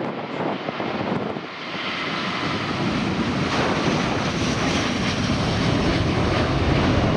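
Airbus A330-900neo's two Rolls-Royce Trent 7000 turbofan engines at takeoff thrust as the airliner rotates and climbs out, a steady jet noise that grows louder from about two seconds in.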